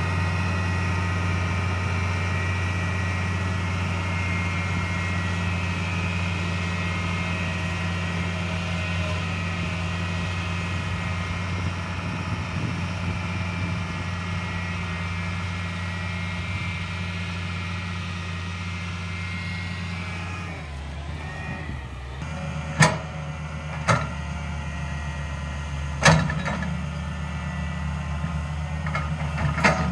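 DAEWOO 130W-V wheeled excavator's diesel engine running steadily under load. About two-thirds through, the engine note drops and four sharp clanks follow as the bucket works hard, cloddy soil.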